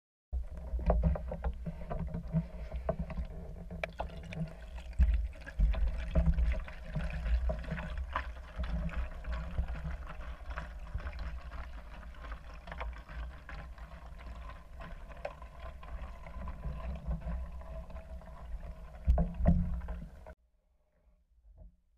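Muffled water noise picked up by a camera held underwater in a spring: a low rumbling wash with scattered clicks and knocks, the loudest about five seconds in and near the end. It cuts off suddenly a couple of seconds before the end.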